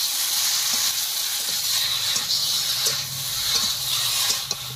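Taro corms coated in spice paste sizzling in hot oil in a metal karahi as the masala is fried down, with a metal spatula scraping the pan in short clicks as they are stirred.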